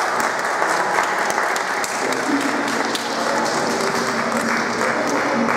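Audience and seated students applauding, a dense steady clapping.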